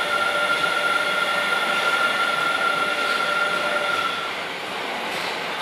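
Osaka Metro 30000 series electric train arriving at a platform, its VVVF inverter giving a steady high whine over the rolling noise as it brakes. The whine cuts off about four seconds in, leaving a steady hiss.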